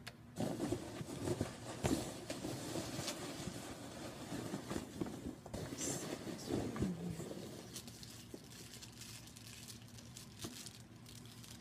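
Rustling and crinkling as a hand rummages through packed products in a cardboard shipping box, busiest with sharp crackles and clicks for the first seven seconds, then quieter.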